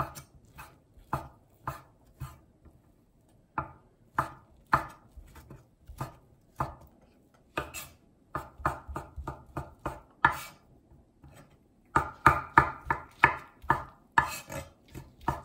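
Chef's knife slicing soaked dried shiitake mushrooms on an end-grain wooden cutting board, the blade knocking on the board with each cut. The cuts come unevenly at first, then quicken into a fast run of chops about twelve seconds in.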